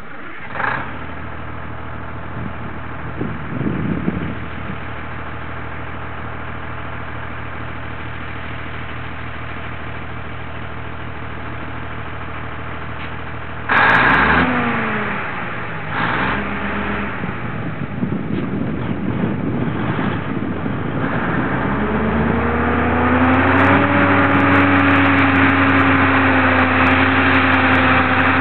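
M816 6x6 wrecker's Cummins six-cylinder diesel engine running steadily, then about 14 seconds in revving hard, its pitch sliding up and down with a brief dip. From about 21 seconds it climbs to a louder, higher, steady pull under load.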